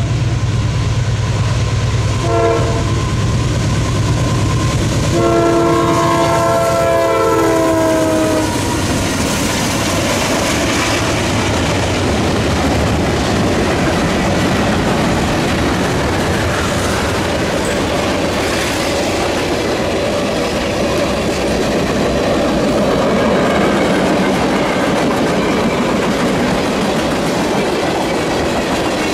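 CSX freight train's diesel locomotive sounding its chime air horn for a grade crossing over the low rumble of its engines: the end of one blast, a short blast about two seconds in, then a long blast of about three seconds. The horn then stops and the freight cars roll past with a steady clatter of wheels over the rail joints.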